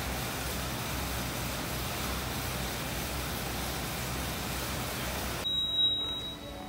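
Steady hiss with a low hum, the constant background noise of the gym room. It cuts off abruptly near the end, where a thin high steady tone sounds for about a second along with a brief louder noise.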